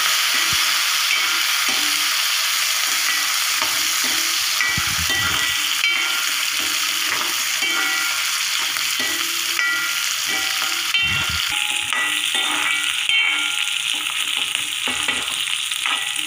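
Shallots and green chillies sizzling in hot coconut oil in an aluminium kadai, with a steel spoon scraping and clinking against the pan every second or two as they are stirred.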